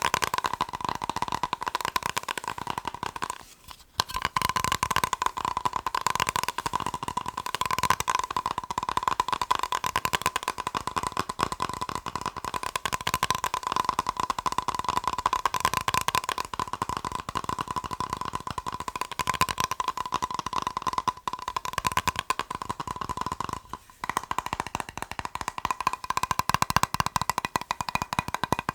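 Fast tapping on a plastic box: a dense stream of rapid clicks over a steady ringing note, stopping briefly about three and a half seconds in and again about five seconds before the end.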